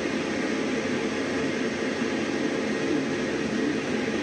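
A 3D printer running mid-print, giving off a steady, even whirr.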